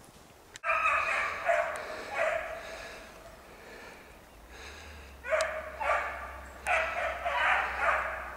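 Beagle baying on a rabbit's scent trail: drawn-out, pitched bawling notes in two runs, starting about a second in and again from about five seconds in.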